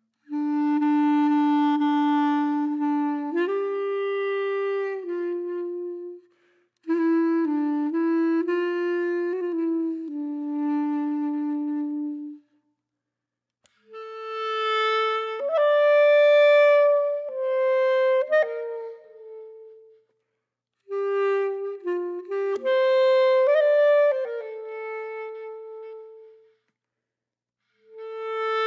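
Background music: a slow solo melody of single held notes on a wind-like instrument, played in phrases broken by short silences.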